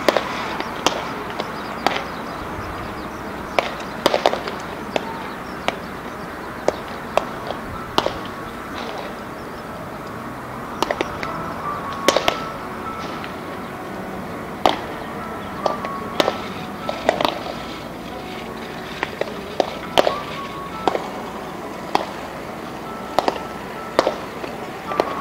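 Baseballs smacking into leather gloves and a catcher's mitt during a game of catch: sharp pops every second or two, sometimes in quick pairs where several players throw at once. Music plays in the background.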